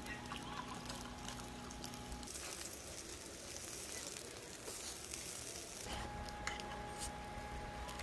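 Makgeolli being poured from a plastic bottle into a steel cup. After about two seconds, meat sizzles on a wire grill over hot charcoal, an even hiss for about three and a half seconds that stops suddenly.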